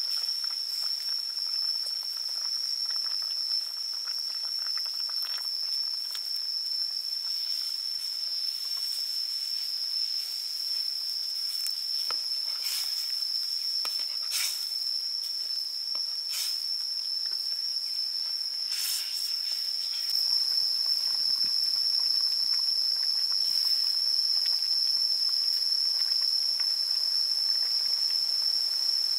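Curry simmering and hissing in a wok, under a steady high-pitched insect drone. A few sharp clicks come through the middle stretch, and the simmering grows louder about two-thirds of the way in.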